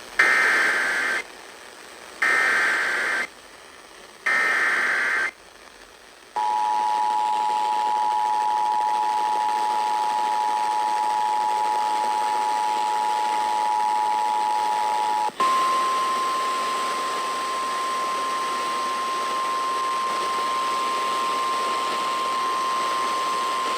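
Emergency Alert System broadcast over radio with a steady hiss underneath. It opens with three short screeching bursts of SAME header data, a second apart. Then comes the two-tone attention signal, held for about nine seconds, followed by a single higher steady tone, the NOAA Weather Radio 1050 Hz alert tone.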